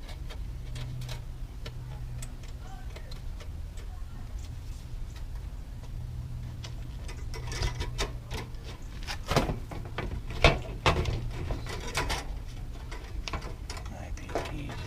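Light clicks and taps of a bug screen and the RV furnace vent parts being handled and pushed into place, busiest in the second half, over a steady low hum.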